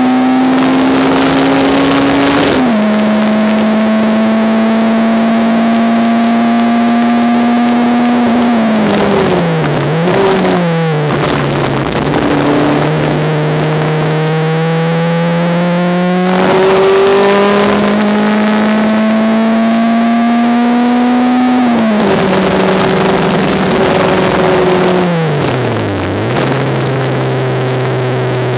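Onboard sound of a Honda Civic race car's four-cylinder engine under hard acceleration, its pitch climbing through the gears and dropping at each upshift. Twice it lifts and drops in pitch with quick throttle blips on the downshifts into a braking zone, once about a third of the way in and again near the end. It then runs steadily at lower revs.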